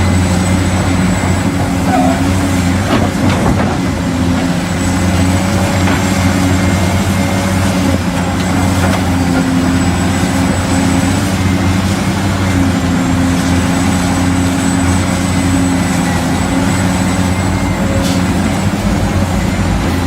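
Steady, even machine drone with a low hum and a faint high whine, from the radio-controlled excavators and dump truck at work or an engine sound laid over them.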